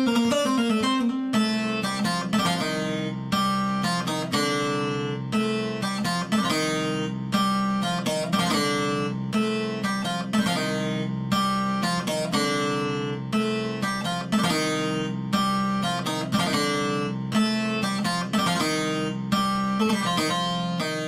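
Sampled Middle Eastern plucked string instrument from Native Instruments' Discovery Series: Middle East library, playing a melody of sharply picked notes with low notes ringing underneath.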